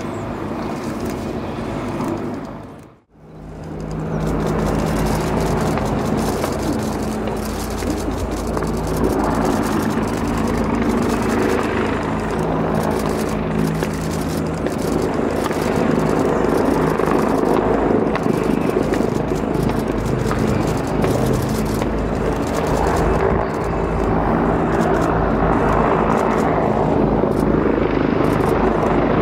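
Z-10 attack helicopter in flight, its rotor and turboshaft engines making a loud continuous drone with a steady low hum that swells and eases as it manoeuvres. The sound cuts out for a moment about three seconds in, then returns.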